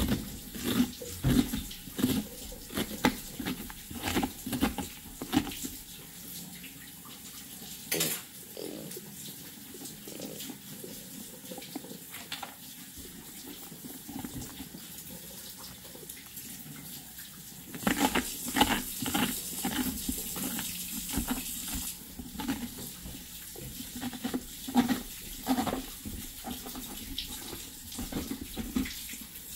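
Water running from a tap with splashing, mixed with scattered clicks and knocks. The hiss of the water is strongest a little after halfway through.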